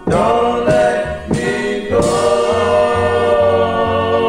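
Doo-wop vocal group singing a ballad in close harmony: three short sung notes, then one long held chord as the song closes.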